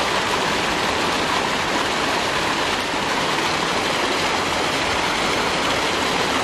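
Small waterfall splashing down over rocks close by: a steady, even rush of falling water.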